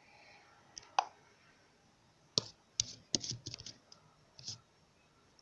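Fingers tapping on a tablet's touchscreen: a scattering of sharp clicks, a few spaced out and a quick run of them around the middle, while the tablet has frozen.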